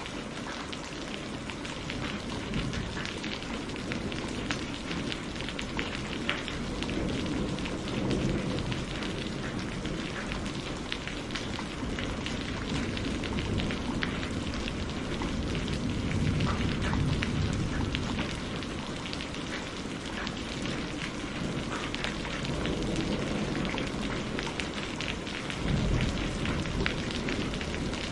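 Steady rain falling, with many individual drops pattering. Low rumbles of thunder swell up several times, about a quarter of the way in, around the middle, and near the end.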